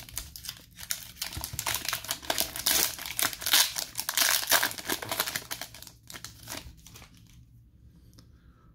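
Foil wrapper of a hockey trading-card pack crinkling and tearing as it is peeled open by hand, stopping about seven seconds in.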